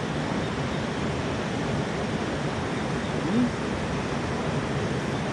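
Steady rush of river water, an even noise with no breaks.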